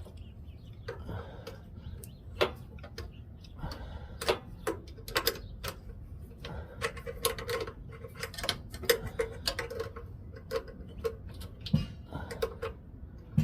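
Irregular light metallic clicks and ticks of a nut and hand tools being worked on the carburetor mounting bolts of a Tecumseh snowblower engine.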